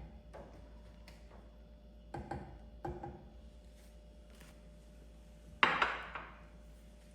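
A few light knocks of household objects being handled, then a louder clack about five and a half seconds in that fades over half a second.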